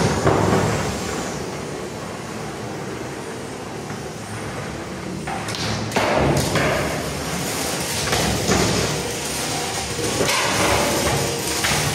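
Antweight combat robots fighting: the spinning drum weapons run steadily under several sharp bangs and thuds as the drums strike each other and the robots are thrown into the arena walls, with the hardest hits bunched in the middle of the fight.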